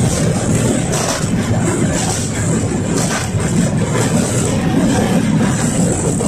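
Interior running noise of a KTM-5M3 (71-605) tram under way: a steady low rumble from the DK-259G3 traction motors and the wheels on the rails, with a few sharper knocks.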